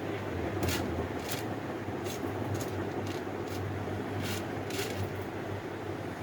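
Steady mechanical hum, like a fan or blower running, with a few light clicks scattered through it as small tools handle a part.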